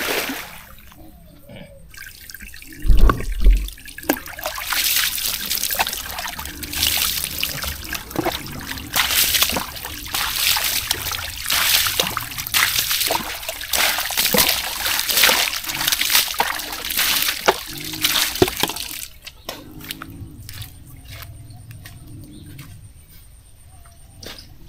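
Water splashing and trickling in uneven surges, stopping abruptly a few seconds before the end. A loud low thump comes about three seconds in.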